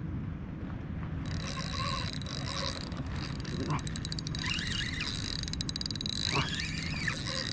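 Fishing reel buzzing and ticking from about a second in as the line is worked against a hooked fish. Wind rumbles on the microphone, and two rising-then-falling bird calls come in the second half.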